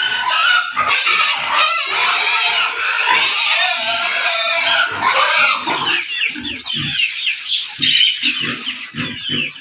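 Pigs squealing and grunting together in a dense, loud din. About six seconds in the din drops away, leaving short quick high squeaks and low grunts.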